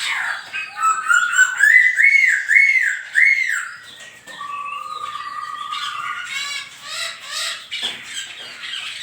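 Songbird singing: a rising whistle that runs into four loud arched notes, then one long steady whistled note, then a string of quicker, varied notes.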